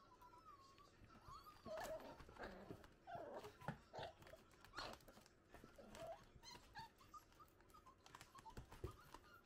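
Italian greyhound puppies whining in high, wavering tones, with short yelps in the middle of the play. Their paws scratch and scrabble on the cardboard box walls and puppy pads.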